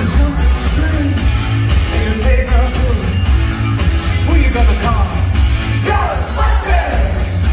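Loud music with singing over a heavy bass beat.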